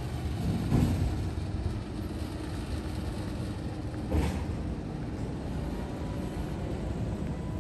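Outdoor street ambience: a steady low rumble of distant traffic and air, with two brief louder thumps, one about a second in and another around four seconds.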